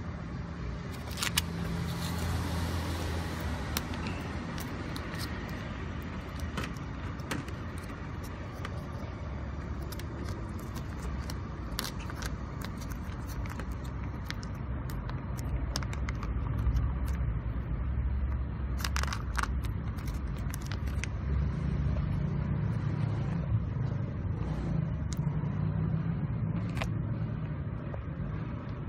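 Road traffic as a steady low rumble that swells and eases as vehicles pass, with the crinkle and rustle of a foil wet-food pouch being torn open and squeezed out onto a paper plate in scattered bursts, the sharpest crackles about two-thirds in.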